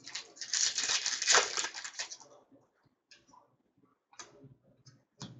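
Foil wrapper of a Fleer Ultra hockey card pack crinkling and tearing as it is opened, dense crackling for about two seconds. It is followed by a few light clicks and taps of cards being handled.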